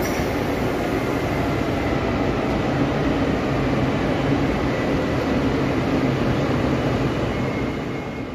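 Siemens Vectron electric locomotive hauling passenger coaches slowly into the platform: a steady rumble with a low hum and a faint high tone, easing off near the end.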